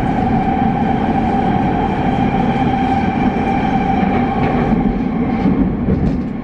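Škoda Varsovia metro train running through the tunnel, heard from inside the passenger car: a steady rumble with a whine that fades out about five seconds in as the train slows for the station.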